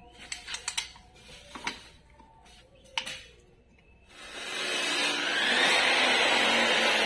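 Scattered sharp metal clicks and clinks of hand tools on a brake bracket, then, about four seconds in, brake fluid poured from a bottle into a small plastic brake reservoir. The pour is a steady rushing splash whose pitch climbs as the reservoir fills.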